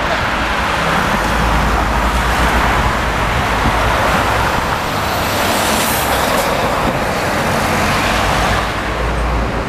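Heavy road traffic going past close by, cars and articulated lorries, a steady rush of tyres and engines with one vehicle swishing past about six seconds in.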